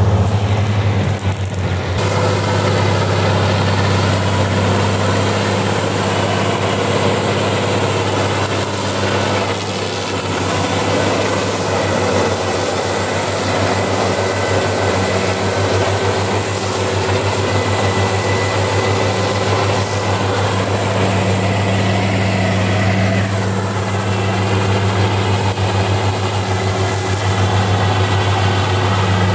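Tractor's diesel engine running steadily while it drives a PTO-driven mower cutting tall, dense grass, a continuous low drone.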